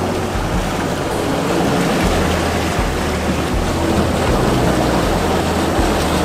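Wind and water noise aboard a sailing yacht under sail in a fresh breeze of about 20 knots: a steady rush of wind and of water along the hull, with uneven low buffeting of wind on the microphone.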